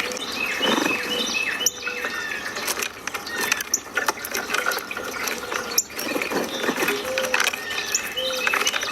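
Small birds chirping and whistling in many short, quick notes over a steady hiss of outdoor ambience, with a few sharp clicks.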